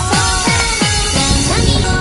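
Electronic dance music laid over the footage: repeated falling synth sweeps, about four a second, that give way to held notes about halfway through.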